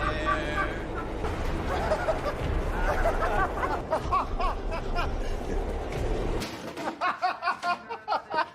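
People talking over a low steady background rumble, then, from about six and a half seconds in, a run of quick, evenly spaced voiced bursts like laughter.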